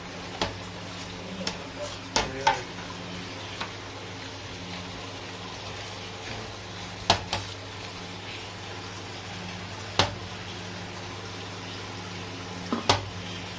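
A metal ladle clinks against a large steel serving pan and clay bowls while siri paye broth is dished out. Several sharp, separate clinks sound over a steady low hum.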